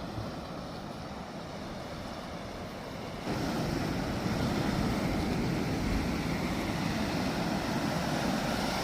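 Steady wind and sea-surf noise, growing louder about three seconds in.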